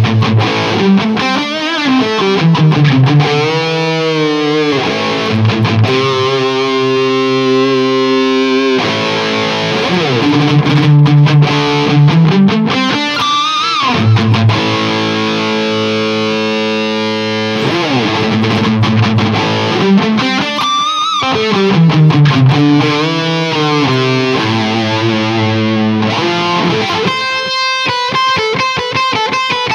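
Distorted electric guitar played through a Hughes & Kettner Tubeman Plus tube preamp on its Lead 1 channel, with the mids turned down, into an ENGL 2x50 EL34 power amp. Sustained notes and chords with several sweeping slides in pitch, then fast chugging picked notes near the end.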